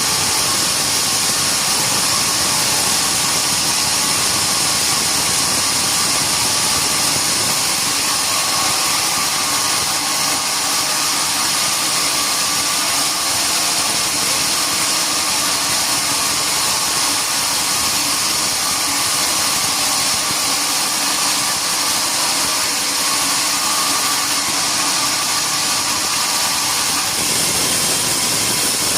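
Sawmill machinery running steadily: a loud, even hiss with a faint hum under it, and the hum drops away near the end.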